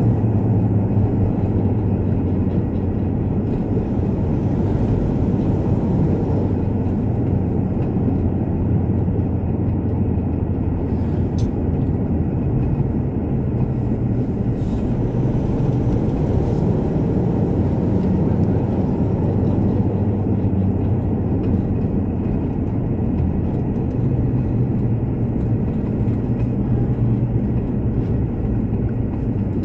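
Steady drone of a Mitsubishi Pajero's engine and tyres heard from inside the cabin while driving.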